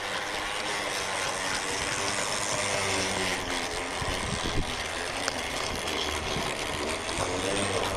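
Large-scale model Brill railcar running along garden-railway track close by: a steady mechanical whir from its motor and wheels, with a couple of short clicks about halfway through.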